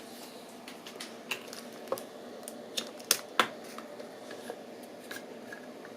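Scattered sharp plastic clicks and taps of USB cables and plugs being handled, the loudest pair a little after three seconds in, over a faint steady hum.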